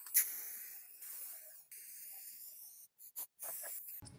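Aerosol spray-paint can hissing in spurts, the spray stopping abruptly about halfway through, with a couple of short bursts near the end.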